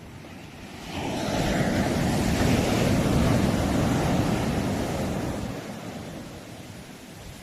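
A sea wave breaking: a rush of surf that swells up about a second in, peaks, then washes away and fades over a few seconds.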